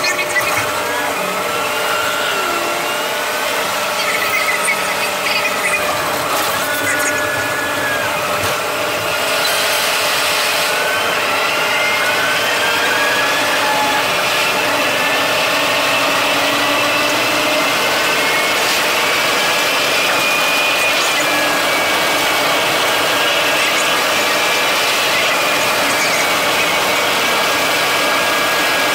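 A bus heard from inside, driving along the O-Bahn concrete guided busway. It makes a steady running noise, with a whine that glides up and down in pitch as the bus speeds up and settles. It grows louder and steadier about ten seconds in as the bus runs at speed on the track.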